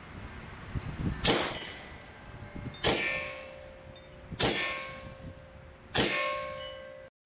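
Four shots from an Evanix VIPER semi-automatic PCP air pistol, about a second and a half apart. Each is a sharp crack followed by a metallic ringing that fades, as the pellets burst sauce packets and strike the target backing.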